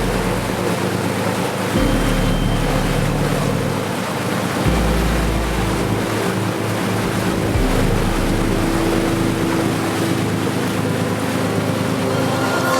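A trawler yacht running through the water: a steady rush of water and wind. Under it, a soft music bed of held chords with deep bass notes that change every three seconds or so.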